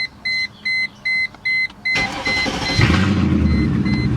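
A car's warning chime beeps evenly about twice a second; about two seconds in the starter cranks briefly and the 1999 Mercedes E55 AMG's 5.4-litre V8 catches and settles into a steady run, the chime carrying on faintly over it. It is a test start to see whether a replacement coil pack on cylinder 4 has cured a misfire.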